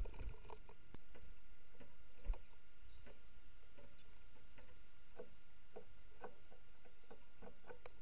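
Small bird pecking at seed and peanuts in an old metal roasting tin on a bird table: quick, irregular taps and scratches.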